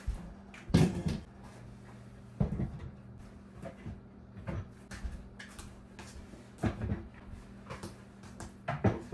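Kitchen chairs being picked up, set down and shifted on the floor: a series of separate knocks and thumps every second or so, over a steady low hum.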